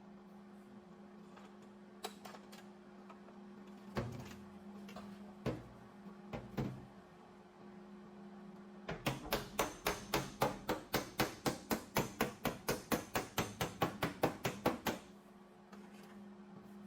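Hammer and dolly striking sheet-metal bodywork. A few single blows come first, then a quick, even run of about four to five blows a second for some six seconds, over a steady low hum.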